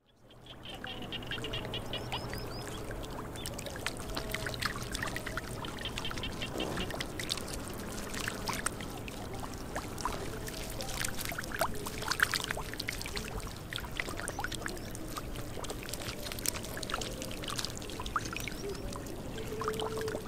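Catfish thrashing in shallow muddy water: a continuous run of small splashes and sloshes. A rapid chirping trill comes twice in the first few seconds.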